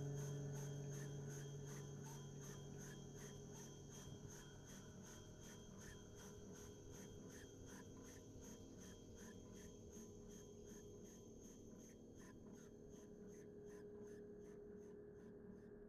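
The last acoustic guitar chord ringing out and dying away over the first few seconds, then near silence with faint, even ticking about three times a second.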